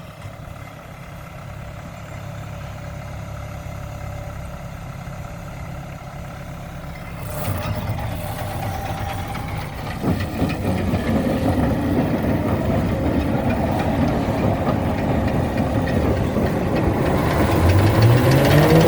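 Braud grape harvester running and growing steadily louder, with a jump in level about seven seconds in and a rising whine near the end as it picks up speed.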